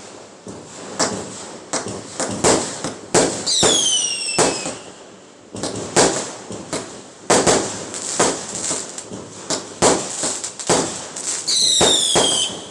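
Fireworks going off in many sharp bangs and pops, irregularly spaced, with two falling whistles, one about three and a half seconds in and one near the end.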